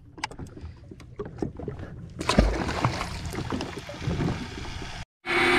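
Scattered small clicks and knocks from a fishing reel and rig being handled as the weighted rig is dropped, over a hiss of wind and water on a jet ski, with a heavier thump about two seconds in. Near the end, after a brief cut, a steady motor hum starts.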